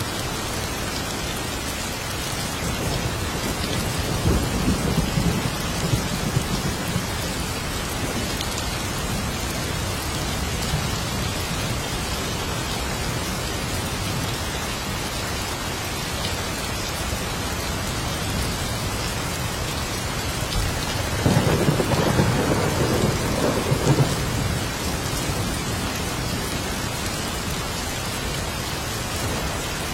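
Steady heavy rain with two rolls of thunder, a lower rumble a few seconds in and a louder one about two-thirds of the way through.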